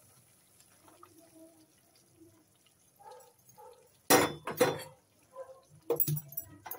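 Hot milk trickling faintly from a steel pot into a nonstick pan, then two loud clanks of kitchen pots and utensils knocking together about four seconds in, followed by a few lighter clicks.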